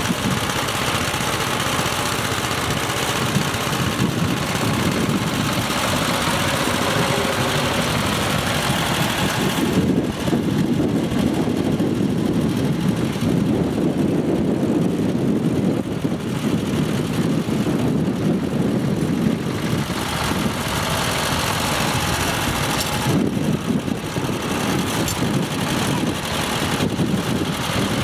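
Single walking-tractor (motoculteur) engine running steadily; its higher tones fall away about ten seconds in.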